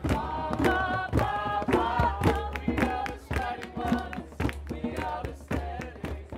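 A group of voices singing together, with a sharp percussive beat struck about twice a second.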